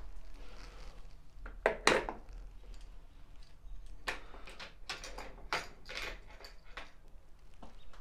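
Scattered clinks and knocks of hand tools and small hardware being handled, the loudest pair about two seconds in.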